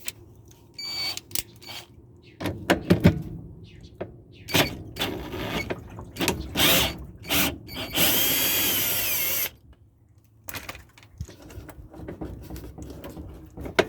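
Power drill fitted with a 14 mm socket running for about a second and a half, about eight seconds in, spinning out a bolt on the underside of a GE washer. Before and after it come scattered metal clicks and knocks of the socket and tools on the washer.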